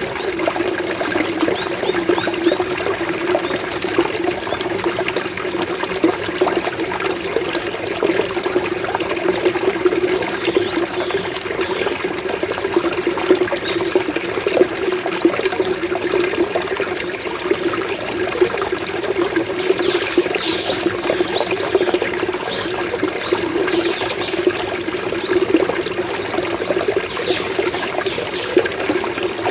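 Running water gurgling and burbling steadily. Birds call over it, a few faint high calls near the middle and then a run of short high calls starting about twenty seconds in.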